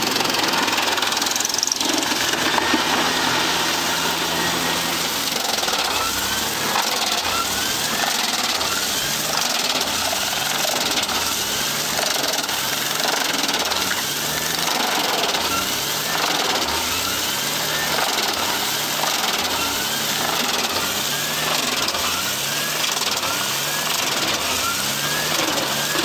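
Wood chipper shredding logs: steady, loud grinding machine noise with a regular repeating pulse.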